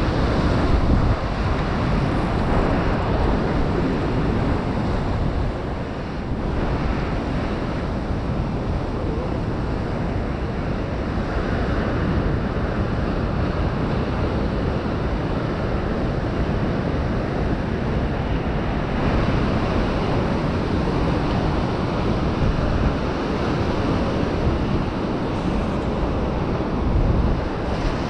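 Steady noise of ocean surf breaking and washing, mixed with wind buffeting the microphone.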